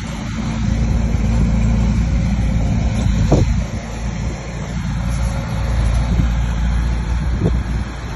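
Bulldozer's diesel engine working, a heavy low rumble that swells and eases as the machine pushes soil, with a couple of short knocks.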